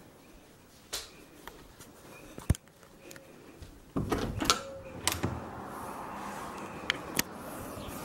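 Balcony door being opened: sharp clicks and knocks of the handle and door, the loudest a single click about two and a half seconds in, a cluster of knocks about four seconds in, and two more clicks near the end. As the door opens, a steady hiss of outdoor air noise comes in and stays.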